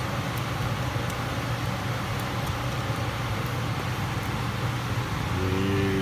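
Steady low mechanical rumble.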